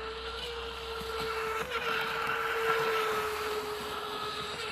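Electric motor and drive of a V2 Streamline Thrasher RC boat whining at speed over the hiss of its spray, rising a little in pitch and loudness through the middle as the boat carves a tight turn close by.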